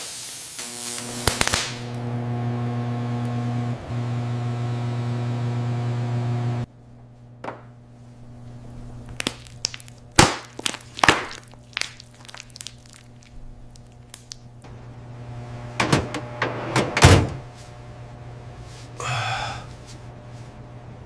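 Microwave oven running with a steady low hum that cuts off suddenly about six and a half seconds in, followed by a series of sharp knocks and thunks, the loudest near the end.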